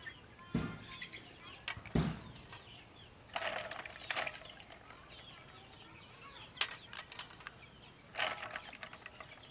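Field snails being lifted out of a metal basin of water and set down on a steel tray: a few knocks and sharp clicks of shell on metal, with short bursts of shells rattling and water sloshing in the basin about three and a half seconds in and again near the end. Birds chirp faintly in the background.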